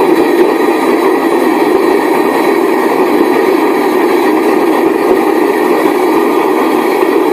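Home-made vegetable-oil-fired furnace burner running at full blast: a loud, steady rushing noise of forced air and flame that holds even throughout.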